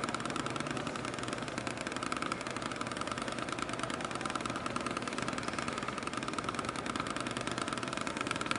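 Drumsticks striking a rubber practice pad in a steady, very fast roll of about twenty even strokes a second, counted by a Drumometer, in the last seconds of a timed speed run. The strokes come so fast that they blur into a buzz.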